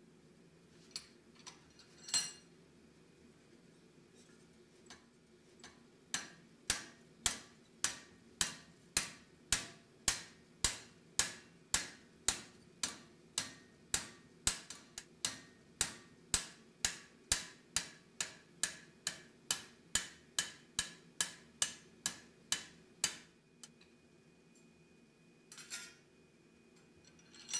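Hand hammer striking a red-hot steel bar held in a vise, bending it over the vise jaw: a few single blows, then a steady run of sharp blows about two a second for roughly seventeen seconds, then a couple more single blows near the end.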